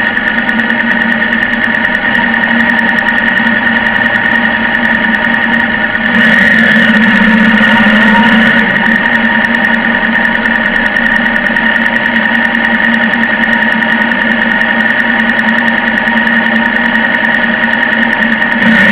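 Sport motorcycle engine idling steadily, heard close from a camera mounted on the bike. A louder spell of engine noise with slight rises in pitch lasts about two seconds, starting around six seconds in.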